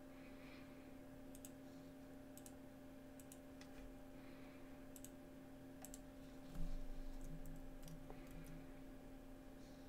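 About a dozen sharp, irregularly spaced computer mouse clicks over a steady low electrical hum. A dull low rumble, louder than the clicks, swells about six and a half seconds in and fades over a couple of seconds.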